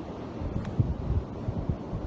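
Wind buffeting the microphone in irregular low rumbling gusts.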